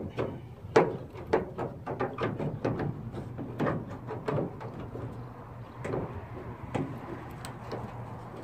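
Honda CRX exterior door handle being worked loose and wiggled out of the door, rattling and knocking in quick irregular clicks that thin out after about four seconds.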